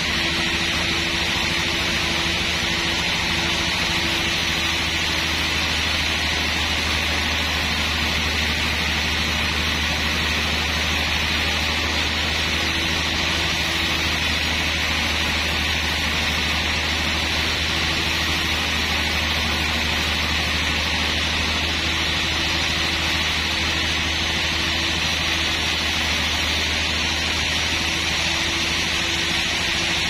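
Large band sawmill running steadily, a constant machine hum with a hiss above it and no change in load.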